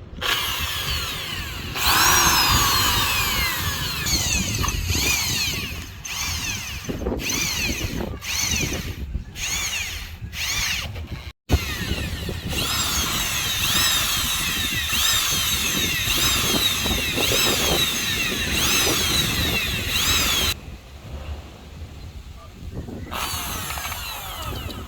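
Electric hand drill boring holes into the wind generator's mounting pipe, its whine repeatedly rising and falling in pitch as the bit cuts. The drilling stops briefly about halfway through, pauses again near the end, then starts once more.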